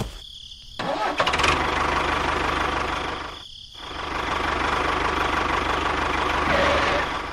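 Tractor engine running in two spells, broken by a short pause a little over three seconds in.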